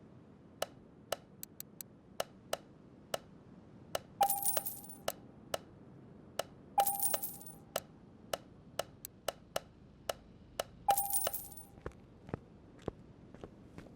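Light metallic clicks at irregular intervals, with three louder ringing clinks of metal on metal.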